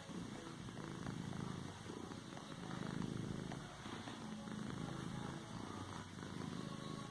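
Domestic cat purring steadily, the purr swelling and easing with each breath about every second and a half.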